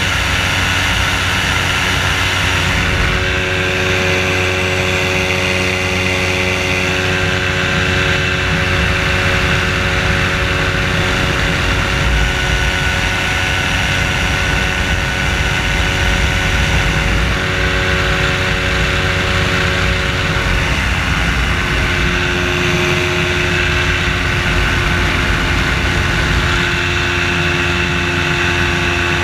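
Engine and propeller of a float-equipped ultralight trike (amphibious motor hang glider) in flight, running steadily at cruise. The engine note drops slightly about two-thirds of the way through.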